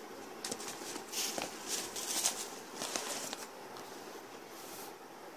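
Rustling and scuffing handling noise with a few sharp clicks, in bursts over the first three seconds or so, then a short hiss near the end.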